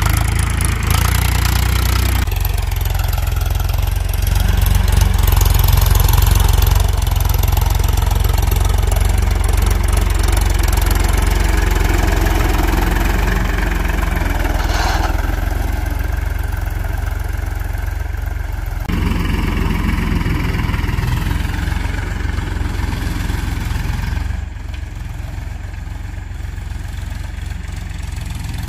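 Powertrac Euro 50 tractor's three-cylinder diesel engine running steadily as the tractor pulls a cultivator through soil, with a few abrupt changes in level.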